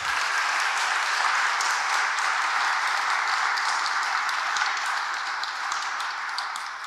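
Congregation applauding: steady clapping from many hands that starts at once and tapers off near the end.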